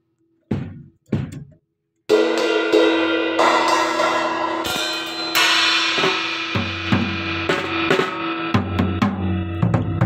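A child playing an acoustic drum kit. Two separate drum strokes come first. From about two seconds in there is a busy run of strikes on the snare, toms and cymbals, with the cymbals ringing on under the hits.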